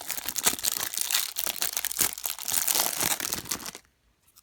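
Plastic wrapping crinkling and tearing as a pack of baseball trading cards is unwrapped, a dense crackle that stops suddenly near the end.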